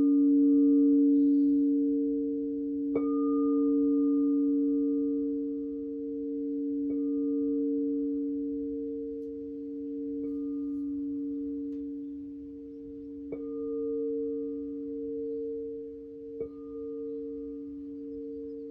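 Crystal singing bowls ringing together in long, overlapping tones, a low one strongest. A bowl is struck five times, about every three to four seconds, each strike bringing back a higher ringing tone, and the sound slowly swells and fades.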